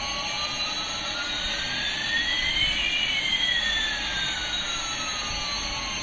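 Electronic jet-engine sound effect: a steady whooshing hiss with one whistling tone gliding up while another glides down, the two crossing about halfway through.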